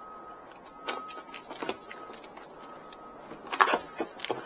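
Cardboard box and packaging being handled and opened: scattered rustles, taps and clicks, the loudest cluster about three and a half seconds in.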